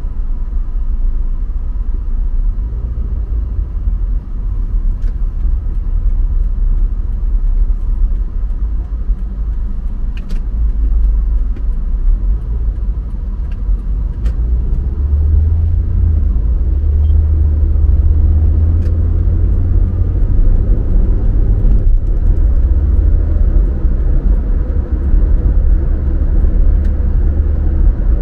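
Car driving on the road: a steady low rumble of engine and tyre noise, which grows heavier about halfway through.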